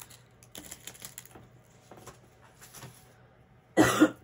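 Light scattered ticks and taps from handling a roll of glittery washi tape, then a short, loud rasp near the end.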